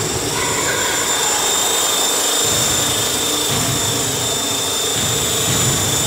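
Small electric RC helicopter hovering low: a steady high-pitched motor whine over a fluttering buzz from the spinning rotor blades, which are slightly out of track after hitting a wall.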